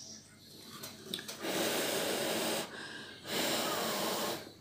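A person blowing two long puffs of breath onto freshly applied hot glue to cool it so the joint sets, each puff about a second long, with a short pause between them.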